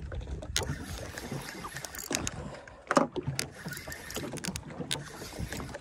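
Water lapping and slapping against the hull of a small drifting fishing boat, with a few sharp knocks, the loudest about three seconds in.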